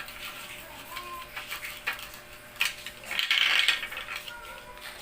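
Toy dishes and play-food pieces being handled, with small clicks and clatters throughout and a louder rattling clatter about three seconds in.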